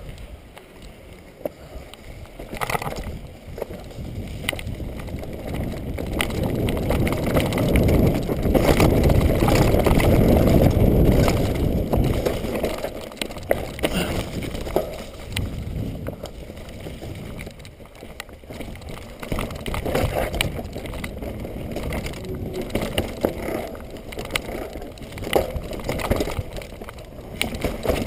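Mountain bike riding fast down a rough dirt trail: wind buffeting the microphone, with tyre noise and frequent clicks and knocks as the bike rattles over rocks and roots. The wind rush swells to its loudest near the middle.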